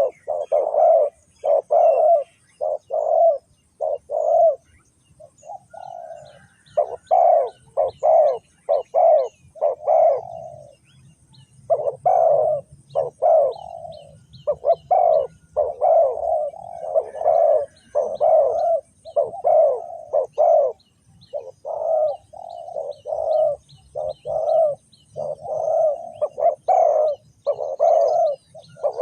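Spotted dove cooing in a long run of short, repeated coos, with brief pauses between phrases. Faint high chirps from small birds sound behind it.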